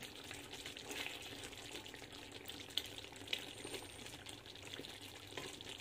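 Chicken apritada in tomato sauce simmering in a pan on a gas burner: faint, steady bubbling and sizzling as the sauce reduces, with a few small ticks.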